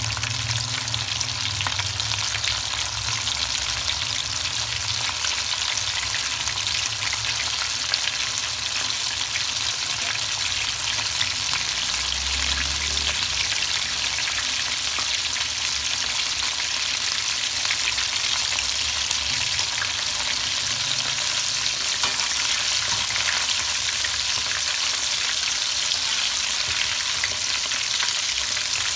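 Flour-coated chicken wings deep-frying in hot oil in a metal pot: a steady, crackling sizzle that does not let up.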